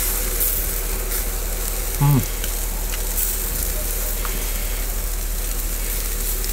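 Shashlik sizzling over charcoal in a mangal: a steady hiss with faint crackles. A short "mm" from the man chewing comes about two seconds in.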